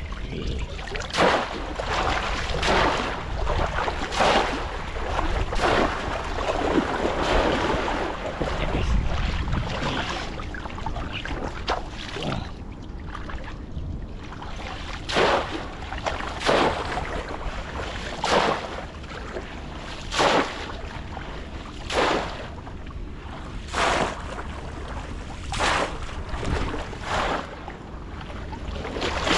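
Water splashing in a steady rhythm, one short splash about every one and a half to two seconds, over a low rumble of wind on the microphone.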